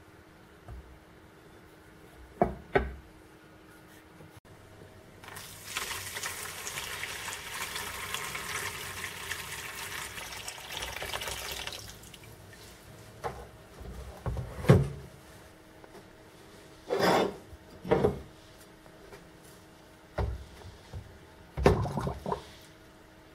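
Two sharp knocks, then clear liquid poured steadily from a container into a plastic tub for about six seconds. After that, a string of knocks and splashes as the rusted mortar shell is set down into the liquid and handled.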